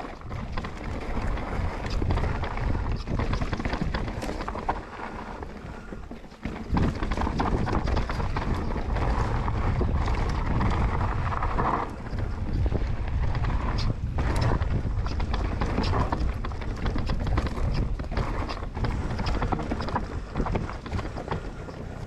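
Commencal Meta enduro mountain bike ridden fast down a rough trail: tyres rumbling over dirt and stones, with a steady clatter of chain and frame knocks, easing briefly about six seconds in.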